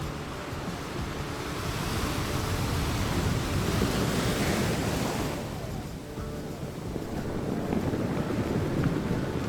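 Ocean waves surging in and washing back, one swell building to a peak about four seconds in and falling away, then another starting to build near the end.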